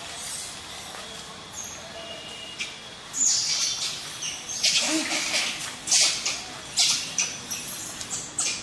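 High-pitched animal squeaks and squeals, starting about three seconds in and coming repeatedly after that.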